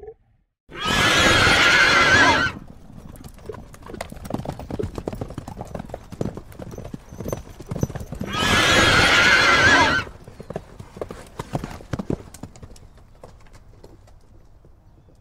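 A horse neighing twice, each a long quavering whinny, about a second in and again around eight seconds. Under and between the neighs comes the dense drumming of a herd's hoofbeats at the gallop, fading away near the end.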